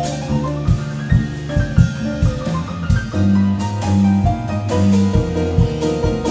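Jazz piano trio playing: piano lines over plucked double bass notes, with drum kit and cymbal strokes throughout.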